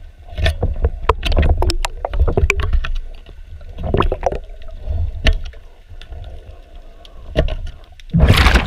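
Metal hand scraper scraping marine growth off a boat's propeller shaft and hub underwater, heard as many sharp irregular clicks and scratches over a low rumble. Near the end a loud rush of the diver's exhaled bubbles takes over.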